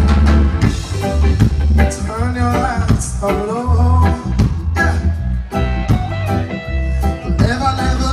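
Reggae music with a heavy bass line, guitar and singing.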